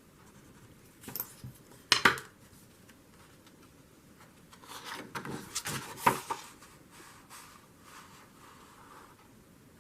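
Paper and small craft tools handled on a work table: a sharp tap about a second in and another near two seconds, then a stretch of paper rustling with clicks around five to six seconds, the loudest click just after six seconds.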